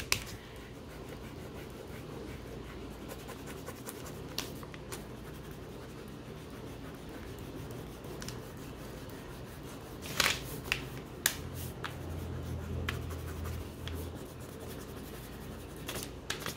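Wax crayon rubbing on paper in steady, scratchy shading strokes as a sky is coloured in with the side of the crayon. A few sharp clicks come from crayons being picked up and set down on the table.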